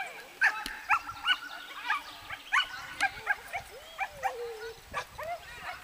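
A dog barking repeatedly in short, high barks, about three a second, as it runs an agility course.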